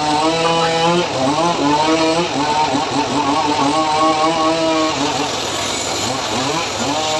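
Home-built engine-driven circular saw ripping teak planks. The engine's pitch sags each time the blade bites into the wood and picks up again as the load eases, several times over.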